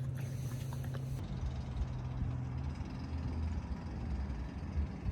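Low, steady hum of a car engine running, with a deeper rumble taking over about halfway through.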